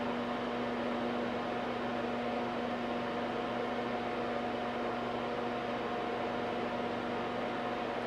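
Bertan 210-01R high-voltage power supply running: a steady electrical hum with two clear tones over an even fan-like hiss, holding unchanged while the output voltage is turned up.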